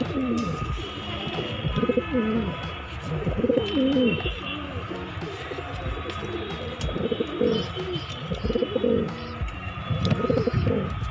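Kalsira pigeons cooing, a string of low rising-and-falling coos repeated every second or so.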